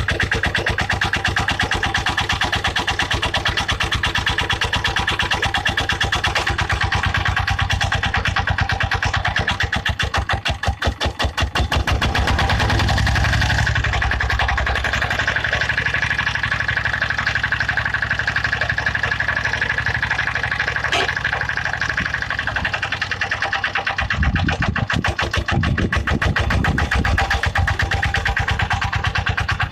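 Small garden tractor's engine running steadily while it works a tractor-mounted hydraulic backhoe, dipping briefly about ten seconds in, with a steady high whine midway; guitar music plays over it.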